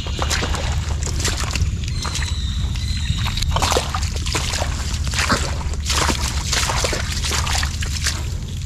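Wet mud and shallow water sloshing and squelching in irregular splashes while snails are searched for and picked out by hand, over a steady low rumble.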